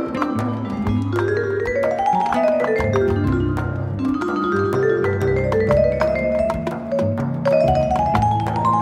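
Background music: quick runs of short, bright pitched notes climbing and falling over held bass notes.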